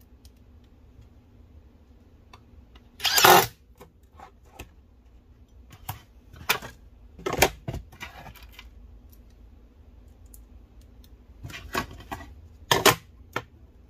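Short bursts of a cordless drill/driver driving screws into a metal drawer slide, with the clicks and clatter of the ball-bearing slide being moved by hand. The loudest burst comes about three seconds in.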